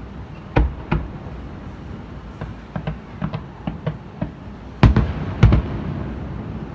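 Aerial fireworks shells bursting: two booms near the start, a run of smaller sharp pops in the middle, then the two loudest booms about five seconds in, each trailing off in an echoing rumble.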